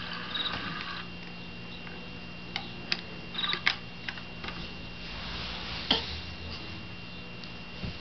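Scattered soft knocks and clicks as a baby's feet kick against a crib toy, with two short high beeps from the toy and a steady low hum underneath.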